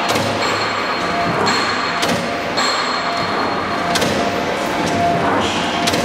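CNC punch press punching steel plate: a series of sharp punching strokes at irregular intervals, a second or two apart, over a steady machine whine and hum.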